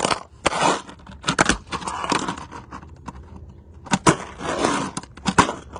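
Fingerboard tricks on an ice chest lid: a handful of sharp clacks as the small board and its wheels hit the lid, with short rough stretches of the wheels rolling between them.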